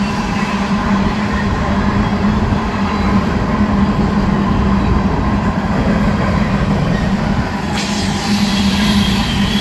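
Freight train passing close by: a loud, steady rumble of cars rolling on the rails with a constant low hum. Near the end a locomotive in the train passes and the sound turns brighter and hissier.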